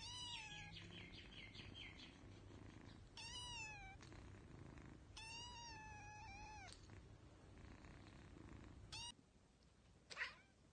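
Tabby kitten meowing four times, the third call the longest and the last a short chirp, each call falling in pitch, over steady purring that stops about nine seconds in. Near the end there is a single brief sharp sound.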